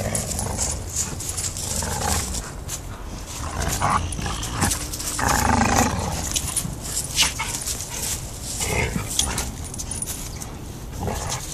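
An English mastiff puppy and a pit bull growling at play while tugging on a leather toy, with louder growls about halfway through and near the end. Dry leaves crackle under their paws throughout.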